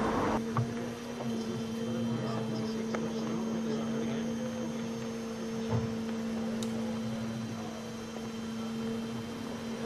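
A steady low hum with a fainter tone an octave above it, over a background hiss, and a soft knock about six seconds in.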